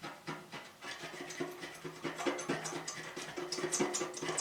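Cloth rag dipped in wood ash being rubbed back and forth over fireplace door glass to scrub off soot, a quick run of scratchy strokes that grows louder about two seconds in.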